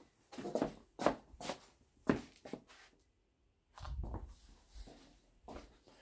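Footsteps on a laminate floor, a handful of short knocks about two a second, followed about four seconds in by a brief low rumble.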